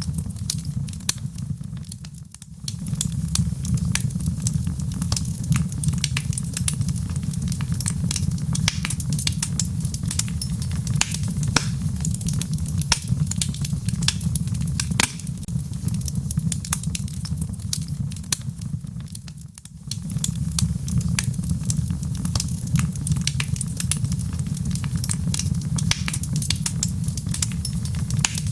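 Wood fire burning logs in a fireplace: a steady low rumble of flames with dense, irregular crackles and pops. The sound dips away briefly twice, about two seconds in and again near twenty seconds.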